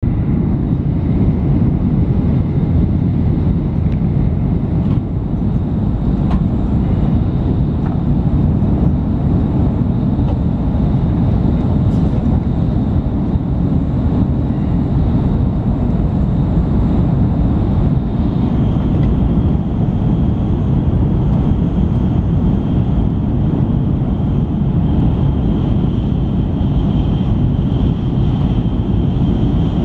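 Cabin noise inside an N700 series Shinkansen running at high speed: a steady low rumble of wheels on rail and air rushing past the body. A faint high tone joins it about two-thirds of the way through.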